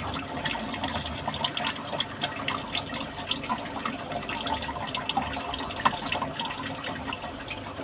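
Steady running, trickling water with many small splashes and ticks, as from the water flow of a crab-rearing box.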